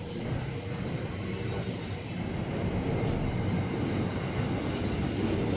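Freight train rolling past, its wagons making a steady rolling noise on the rails that grows louder partway through.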